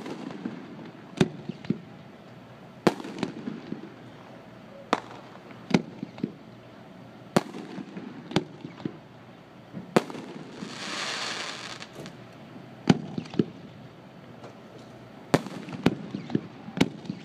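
Aerial firework shells bursting one after another, sharp bangs at uneven gaps of about a second or two. Midway there is a stretch of hissing lasting a second or two.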